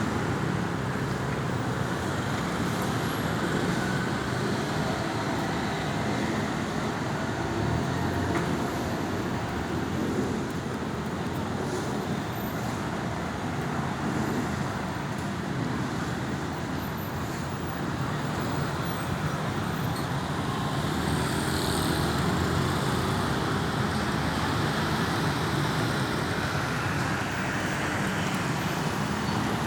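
Steady road traffic noise: cars and larger vehicles running past on a busy street, with no siren clearly heard.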